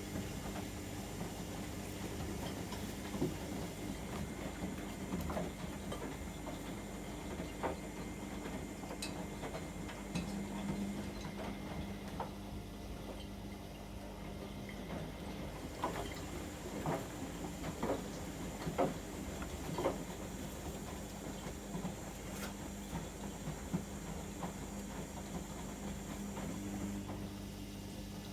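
AEG Öko-Lavamat 73749 front-loading washing machine in its wash phase: the drum motor hums steadily as the drum turns, with water and wet laundry splashing in scattered clicks and slaps, most of them about two-thirds of the way in.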